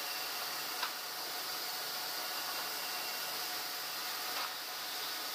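Bandsaw sawmill machinery running steadily, a constant hiss with a few steady tones through it and no cutting heard. There is a sharp click about a second in and a softer one later.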